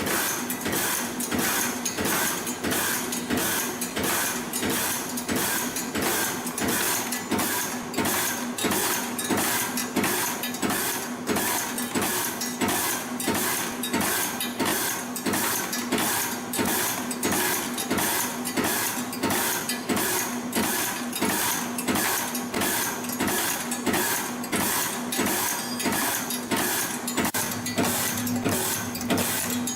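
PR-24 CNC retaining-ring making machine running: wire coiling with a steady hum, and a sharp punch stroke somewhat under twice a second as the press cuts off each formed ring, about 100 rings a minute.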